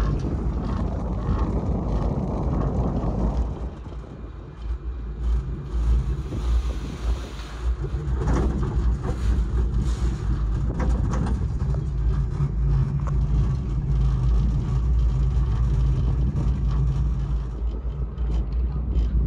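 Steady low rumble of a moving cable car gondola, with a rush of wind-like noise for the first few seconds and a few rattling knocks partway through.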